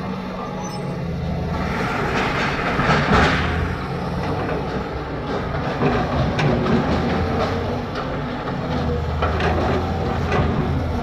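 JCB 3DX backhoe loader's diesel engine running under load, with a rushing swell about two seconds in and a string of sharp metal knocks and clanks in the second half.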